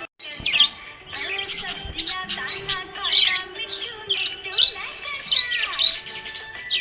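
Small pet parrots chirping, with quick high chirps and gliding warbles several times a second, after a brief gap at the very start. Background music with steady held tones plays beneath.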